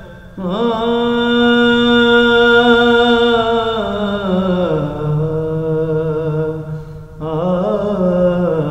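A man's solo voice singing Punjabi Sufi kalam without words here, holding long wavering notes that step down in pitch. He breaks off for a breath just after the start and again about seven seconds in, then a new phrase rises.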